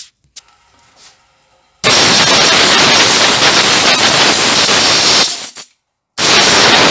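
Compressed-air blow gun blowing swarf out of the lathe chuck in two loud hissing blasts: a long one of about three and a half seconds, then after a brief pause a second, shorter one.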